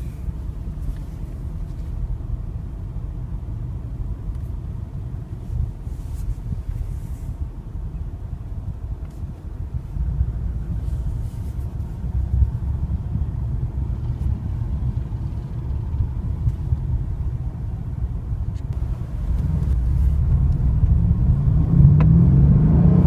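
Mercedes-Benz CLS63 AMG S-Model's 5.5-litre twin-turbo V8 with road noise, a low steady rumble while driving. About four seconds from the end the engine note rises and gets louder as the car accelerates hard.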